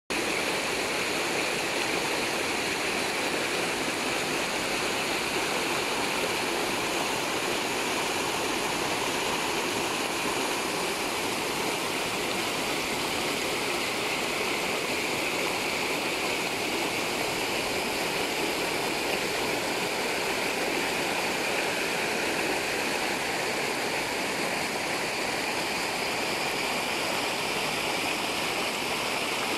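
Rocky mountain stream cascading over boulders and a small waterfall: a steady rush of water.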